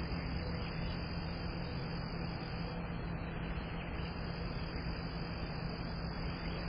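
Air-conditioner condenser unit running: a steady low hum under an even hiss that does not change.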